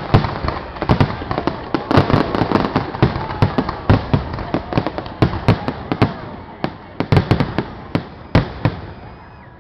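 Fireworks display: a dense run of bangs and crackles, thinning out to scattered bangs over the last few seconds.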